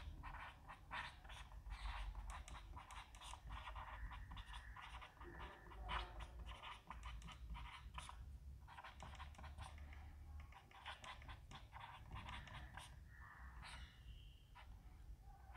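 Felt-tip marker writing on a whiteboard: a faint, irregular run of short scratching strokes.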